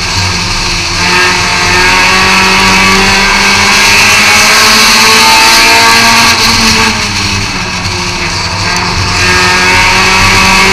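Race car engine at high revs, heard from inside the car. It picks up about a second in, eases off from about seven seconds in, and then pulls hard again near the end, the pattern of a lap: off the throttle into a turn, back on down the straight.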